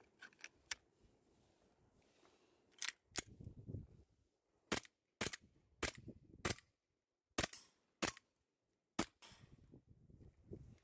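Airsoft Glock-style gas pistol fitted with an underbarrel gas-shell shotgun being fired: a few light handling clicks, then about nine sharp single shots at uneven intervals, starting about three seconds in.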